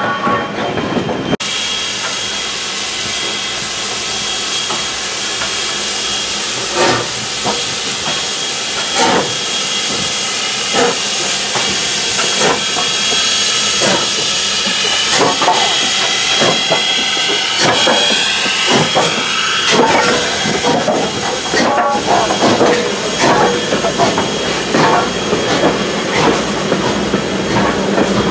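Steam locomotive and train running close by: a steady hiss of steam, cutting in abruptly about a second in, with irregular sharp clicks and knocks from the running gear and wheels.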